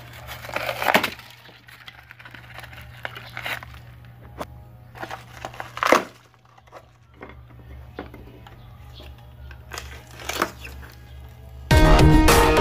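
Brittle white filler being broken up and pulled out by hand from under a stove's casing: scattered cracks and crumbling, loudest about a second in, at six seconds and near ten and a half, over a low steady hum. Loud music comes in near the end.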